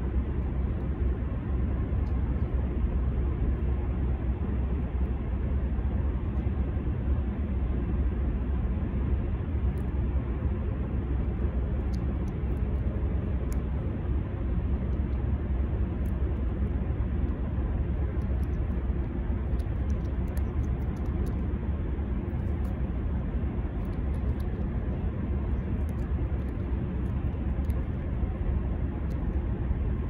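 Steady low rumble of background noise with a few faint, scattered ticks.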